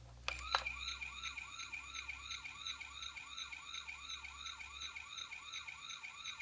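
Toy police car's electronic siren set off by pressing its roof light bar: a couple of clicks, then a fast warbling wail that repeats about three times a second over a steady high tone.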